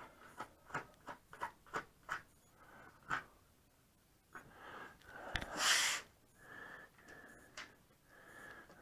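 Screws being driven by hand into a computer case: a run of about eight small sharp clicks and ticks from the screwdriver and screws. About five and a half seconds in comes a short, loud breath close to the microphone.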